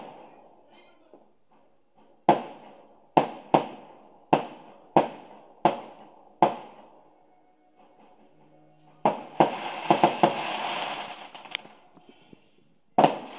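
Aerial fireworks going off: a run of about seven sharp bangs, each trailing off, then a long spell of dense crackling mixed with several bangs, and one more bang near the end.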